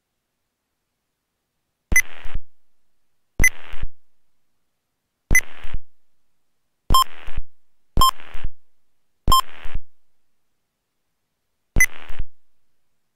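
Seven short radio clicks heard through the aircraft headset intercom, each a sharp beep-like click followed by about half a second of hiss that fades away, with dead silence between them: someone briefly keying a transmitter, opening the squelch each time.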